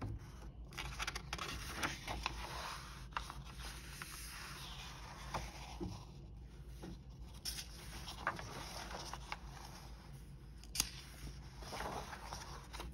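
Faint rustling and soft scrapes of a picture book's paper pages being handled and turned, with scattered light clicks; a page is turned near the end.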